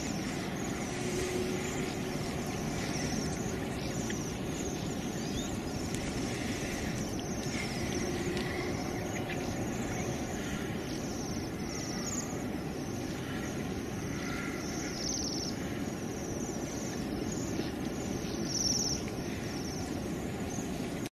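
Steady outdoor background noise, with faint short high-pitched sounds now and then and one slightly louder one near the end.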